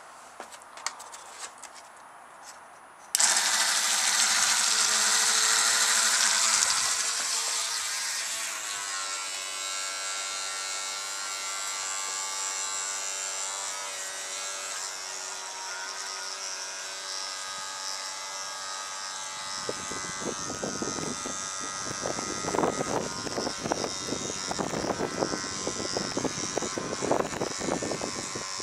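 A battery oscillating electric toothbrush, driving a plastic paddle glued into its bristles, is switched on about three seconds in. It buzzes steadily, loud at first, then fainter as the boat moves off across the water. In the second half, gusts of wind buffet the microphone.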